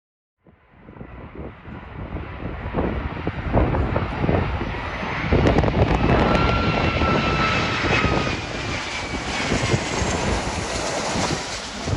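Airliner jet engines running loud as an aircraft passes, with a high whine that drifts slightly down in pitch, over gusty wind buffeting the microphone. The sound cuts in about half a second in and builds over the next few seconds.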